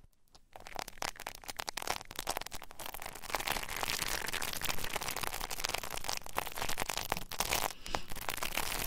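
Close-up ASMR rubbing and scratching on a microphone, a dense steady crackle of fine rustles that starts about half a second in.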